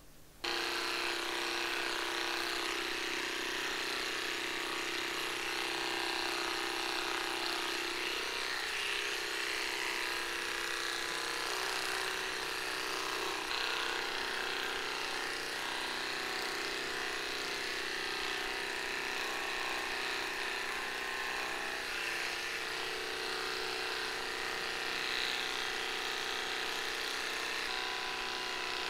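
Electric dog clippers switched on about half a second in, then running steadily with an even buzzing hum as they trim a small dog's coat.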